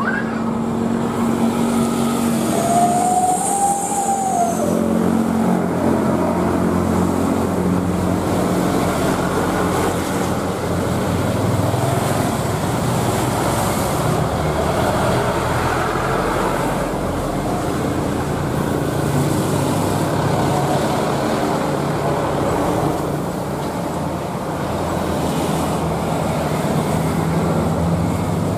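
Airbus A320 jet engines at takeoff power, a steady roar through the takeoff roll. A brief whistle-like tone rises and falls about three seconds in.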